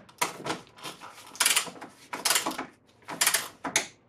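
Hand ratchet wrench tightening strut nuts in short strokes, with a quick rattle of ratchet clicks on each back-swing, about five strokes a little under a second apart.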